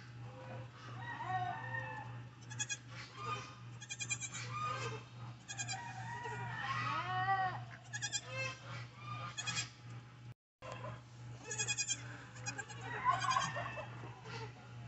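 Nigerian Dwarf goats, a doe with her newborn kids, making short bleats and calls, with chickens clucking in the background over a steady low hum. The sound cuts out for an instant about two-thirds of the way through.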